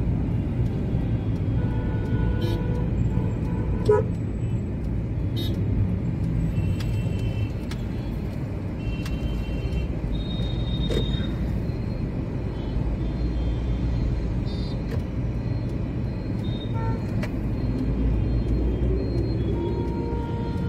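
Steady low rumble of a car driving in city traffic, heard from inside the cabin, with short horn toots from surrounding vehicles and a sharp click about four seconds in.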